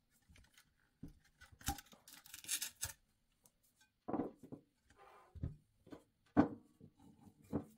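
Handling noise of a small DC motor being taken out of its sheet-aluminium pump housing and set down on a table: a scraping rustle about two seconds in and a series of dull knocks.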